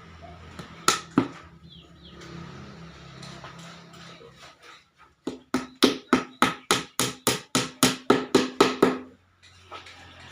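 Hammer blows driving a nail into wood: two sharp blows about a second in, then a quick even run of about fifteen blows, roughly four a second, lasting nearly four seconds.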